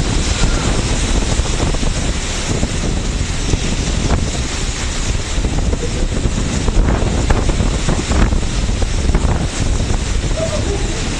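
Rough seas breaking over a container ship's deck: a loud, steady rush of surf and water washing across the deck, with wind buffeting the microphone.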